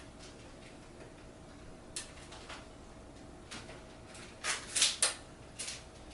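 Hard plastic toy crane parts being handled and fitted together: scattered light clicks, then a quick cluster of louder clacks about four and a half seconds in.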